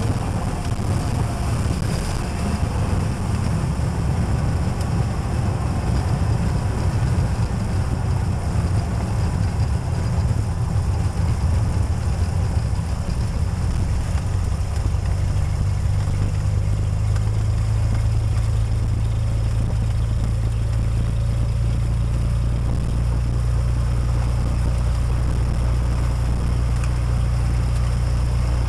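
Cessna 206's six-cylinder piston engine and propeller heard from inside the cabin: a loud, rough rumble for about the first half that settles into a steady, even drone a little past halfway.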